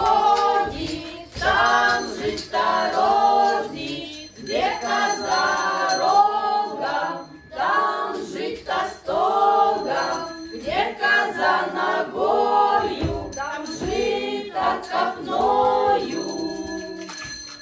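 A group of voices singing a Russian Christmas carol (kolyadka) together, in sung phrases with short breaks between them.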